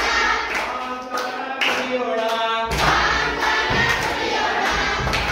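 A group of children singing a Kannada action song together, with hand claps in time. A few low thuds come in during the second half.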